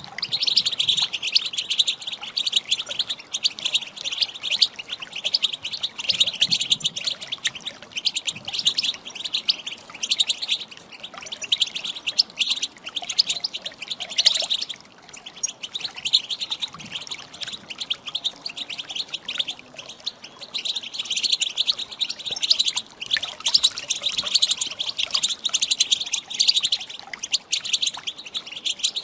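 European goldfinch twittering, a rapid run of high chirps and short calls, thinning a little past the middle. The uploader presents it as a female goldfinch's calls, played to prompt a caged goldfinch to answer and start singing.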